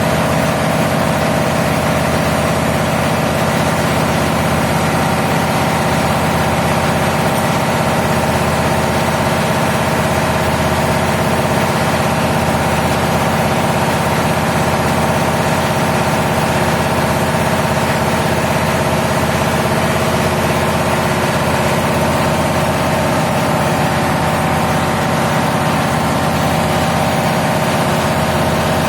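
Diesel engine machinery running steadily, a loud constant drone with a steady hum over a low rumble.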